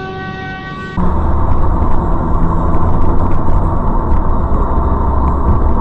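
Car driving, heard through a dashcam mic inside the cabin: loud, steady low road-and-engine rumble that starts abruptly about a second in. Before it comes a quieter steady hum of several even tones.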